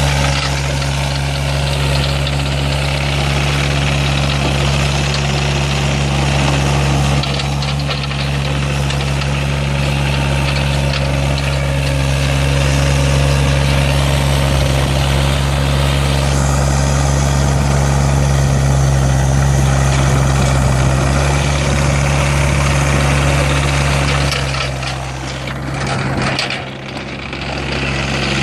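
Hitachi ZX35U mini excavator's diesel engine running steadily. It dips briefly in level near the end.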